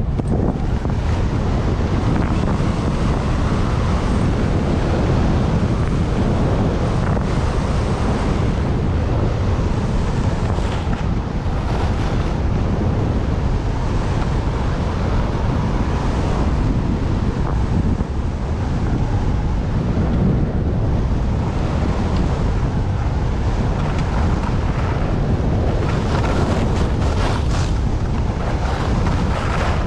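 Wind buffeting the microphone of a skier's point-of-view camera during a fast downhill run, a steady rushing noise. Skis hiss and scrape on the snow through it, with a few sharper scrapes near the end.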